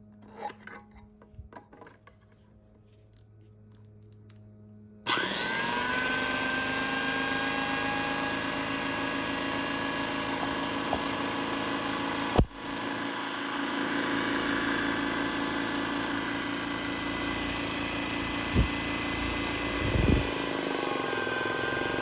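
A Spray Master model 1948 mini air compressor, driven by a small 110 V AC motor, starts suddenly about five seconds in after a few light clicks. It then runs steadily and very loudly. There is one sharp click partway through and two short low thumps near the end.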